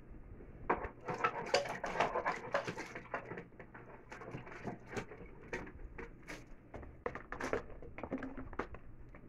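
Irregular clatter of kitchen utensils being handled and rummaged through: scattered clicks and light knocks with rustling, busiest in the first few seconds.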